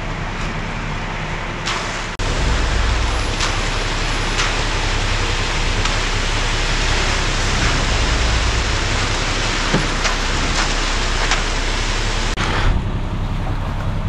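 Concrete mixer truck's engine running steadily while wet concrete slides down its chute, a loud, even rushing noise over a low engine hum, with a few short knocks.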